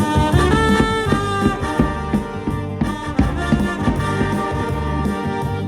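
Live band music: a brass melody over regular drum hits and a steady bass line.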